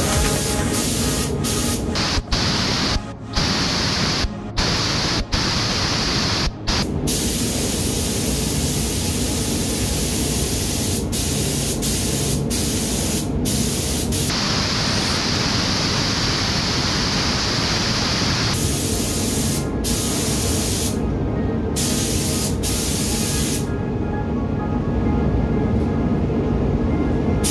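Air-fed gravity-feed paint spray gun hissing as paint is sprayed onto motorcycle fairing panels, with a few brief breaks in the first seven seconds. Background music plays underneath.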